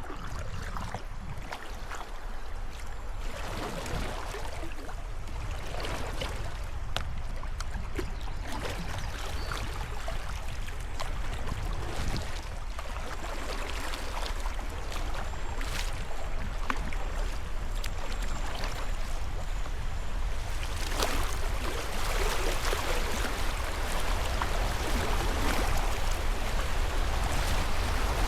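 River current rushing around a kayak, with repeated splashes of paddle strokes every second or two. The water gets louder about three quarters of the way through.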